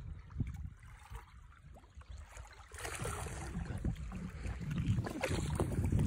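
Wind buffeting the microphone outdoors, a fluttering low rumble, with a broader hiss coming in about three seconds in.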